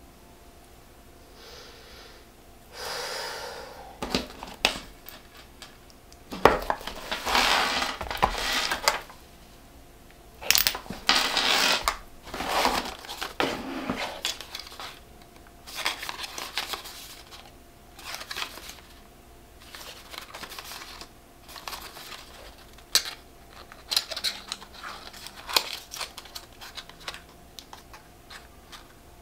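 Close-miked handling sounds of an unboxing: several longer rustling swishes in the first half, then a run of light taps, clicks and small clinks as a cardboard lipstick box is picked up and handled.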